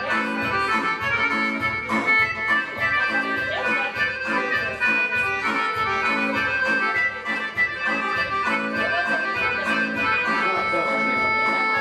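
Live electronic keyboard music: a melody of long held notes over a steady backing beat.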